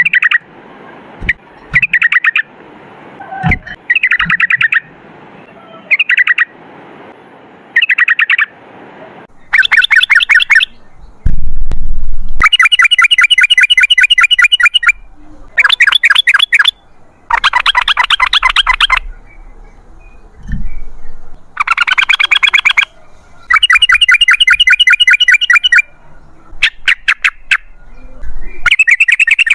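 Yellow-vented bulbul (trucukan) singing in loud bursts of rapid, rattling chatter, each phrase a second or two long with short pauses between. It is a long rolling ('ropel') song used as a master recording to set other birds singing.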